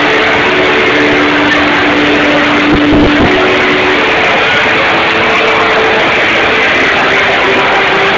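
Loud, dense crowd din with music in an Oktoberfest beer tent, a few held notes standing out above the noise. There is a brief low thump about three seconds in.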